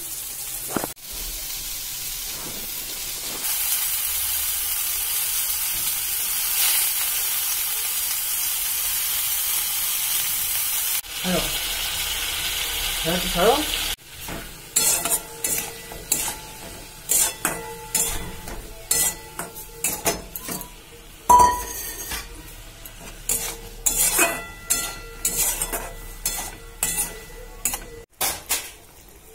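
Cauliflower florets frying in hot oil with a steady sizzle. About halfway through, this gives way to a spatula stirring pointed gourds in a wok, with many quick scrapes and knocks against the pan.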